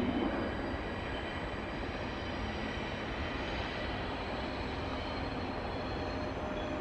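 Electric train moving through a station: a steady rumble with faint high whining tones above it.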